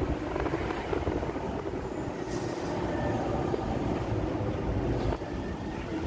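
Steady road rumble of a moving flatbed tow truck, heard from inside the broken-down pickup truck riding on its bed.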